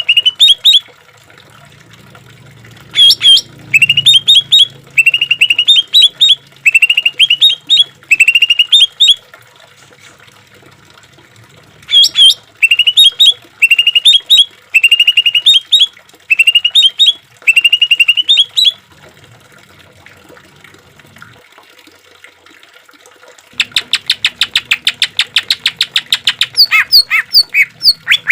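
Greater green leafbird (cucak ijo) singing: loud clusters of short, sharp rising notes, about one cluster a second, broken by two pauses. Near the end it switches to a long, fast trill.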